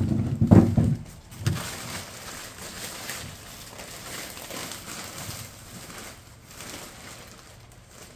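Fabric of a picnic blanket rustling as it is handled and spread out, with a dull thump about half a second in.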